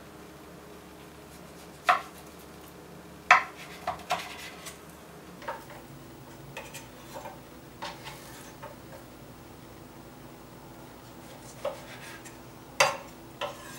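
Chef's knife knocking and tapping on a wooden cutting board as the hard fat cap is cut off New York strip steaks: a scattering of sharp knocks, the loudest about three seconds in and near the end, over a faint steady hum.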